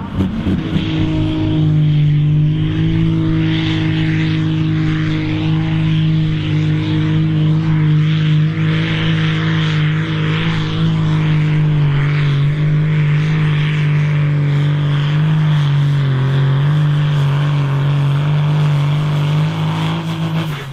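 A John Deere farm tractor's diesel engine runs at high revs under heavy load while pulling a weight sled, a loud steady drone. Its pitch holds nearly level, sags a little past the middle, and drops off abruptly at the end.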